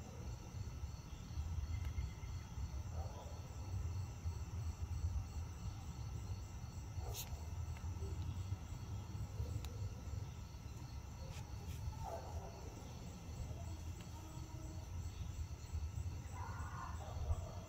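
Crickets chirping steadily over a low, steady rumble, with a few faint sharp clicks midway.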